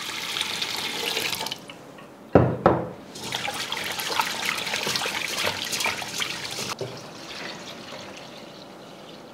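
Rice being washed in a stainless steel pot. Water pours in from a plastic jug, there is a thump after about two seconds, then a hand swishes and rubs the rice around in the water, and near the end the cloudy rinse water is poured off into a bowl, more quietly.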